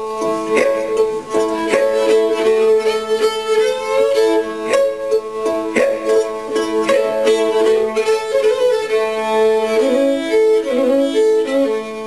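Solo fiddle playing an old-time tune, the bow sounding a steady low drone string under the moving melody.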